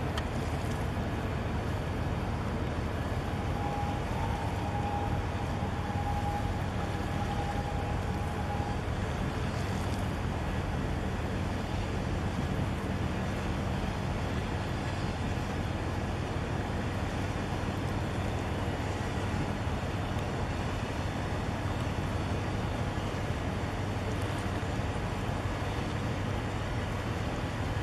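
Steady low engine drone with a constant wash of water and wind noise, heard from a boat on the water. A few seconds in, a steady high tone sounds for about five seconds.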